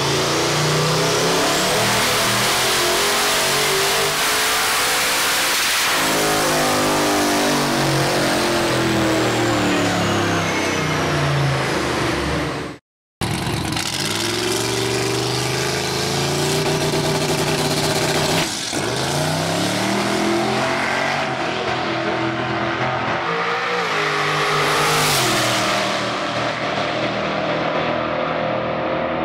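Twin-turbocharged Chevrolet Silverado engine at full throttle on a chassis dyno, its note climbing with a thin high turbo whistle over it. After a sudden cut, the truck launches and accelerates hard down a drag strip, the engine note rising and dropping back at each gear change.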